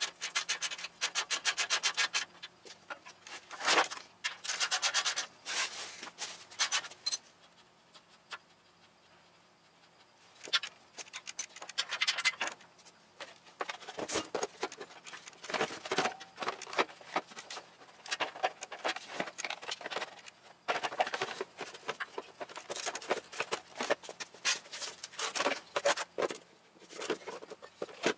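Hands working parts onto a scooter frame: two bursts of rapid ratcheting clicks in the first several seconds, then, after a short lull, scattered clicks, knocks and scraping of metal and plastic parts being fitted.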